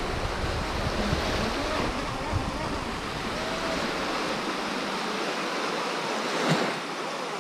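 Small waves lapping and breaking on a sandy shoreline, with wind buffeting the microphone; the wind rumble drops away about two-thirds of the way through. A single brief knock near the end.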